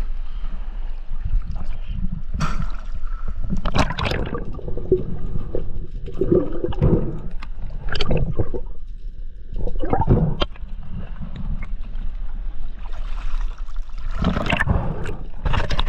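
Water sloshing and gurgling close to the microphone, with irregular splashes throughout.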